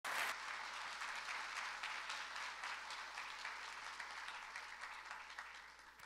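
Large audience applauding, the clapping steadily dying down and fading out near the end.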